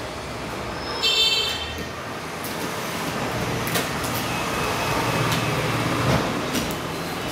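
Cardboard box being opened by hand: a loud ripping of packing tape about a second in, then cardboard flaps rustling and knocking as they are folded back.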